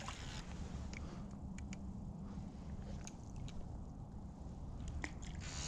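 Soft handling noises, a few short clicks and rustles with a cluster near the end, over a steady low rumble.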